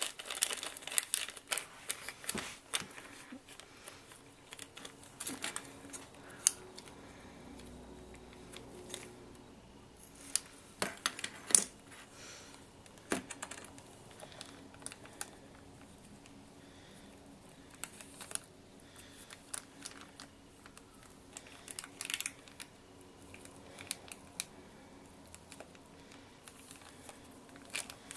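Small clear plastic bag crinkling in short, irregular bursts as it is squeezed and folded by hand, with a few sharper clicks, the loudest near the middle.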